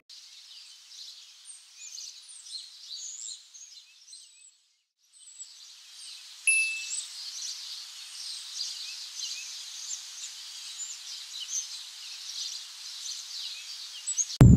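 Small birds chirping and singing in woodland, a dense high-pitched chorus of short calls over a faint hiss. It fades out briefly about four seconds in and comes back, and a single sharper, louder chirp stands out about six and a half seconds in.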